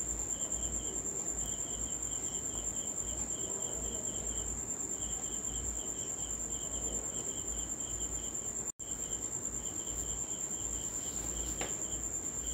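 Insects chirping: short trains of rapid, high-pitched pulses that repeat with brief gaps, over a steady high-pitched tone.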